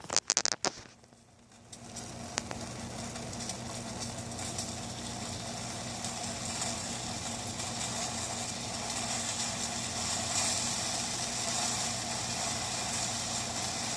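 A pot of sugar, salt and water on a stovetop coming to the boil, hissing and bubbling steadily over a low steady hum. It sets in about a second and a half in and grows a little louder.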